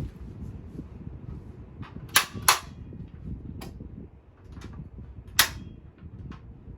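Sharp snapping clicks from the Kirby Classic III vacuum's handle spring and handle joint as they are worked: two quick snaps about two seconds in, another about five seconds in, with fainter clicks and rubbing between. The owner takes the snapping spring for a bad sign.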